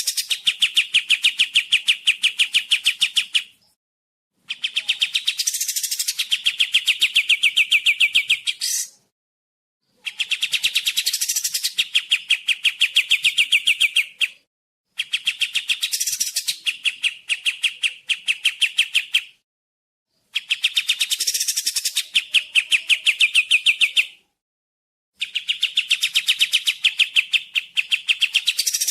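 Kapas tembak song: fast trills of rapidly repeated, clear notes, delivered in bouts of about four seconds with a pause of about a second between them.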